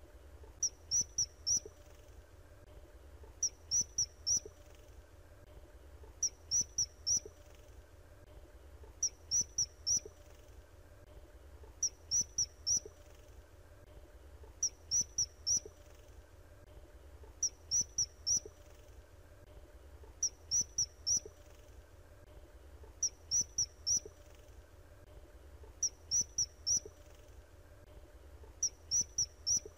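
Common kingfisher calling: groups of three or four short, shrill, high-pitched piping notes, repeated evenly about every three seconds.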